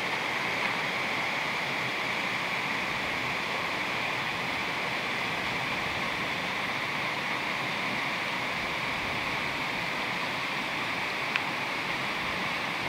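Shallow upland stream rushing steadily over stones and small cascades, an even hiss of fast-flowing water. One brief click about eleven seconds in.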